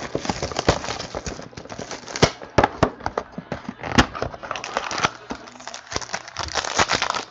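Cardboard 2015 Panini Playbook football card boxes and a foil pack being handled on a table: irregular taps, knocks and clicks, with light crinkling.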